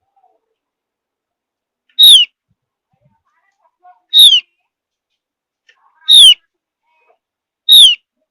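Javan grey-throated white-eye (opior Jawa) giving four short, sharp calls about two seconds apart. Each call is a quick note sliding downward.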